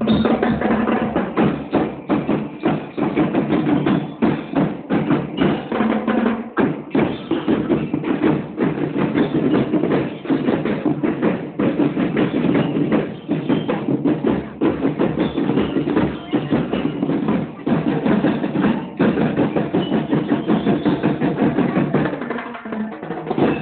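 Marching band playing live: a drum line beating a fast, dense rhythm, with bell lyres carrying the tune above it. The playing softens near the end.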